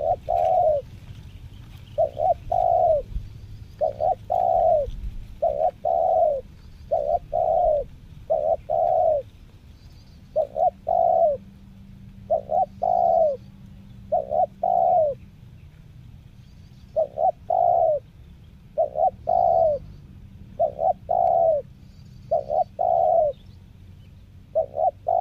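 Spotted dove cooing: short phrases of two or three low coo notes, repeated about every one and a half to two seconds.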